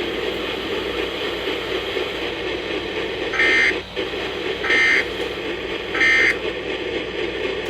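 Three short bursts of Emergency Alert System (SAME) digital data tones, the end-of-message code, each a harsh warbling beep about half a second long and about 1.3 s apart, following about three seconds of steady broadcast hiss.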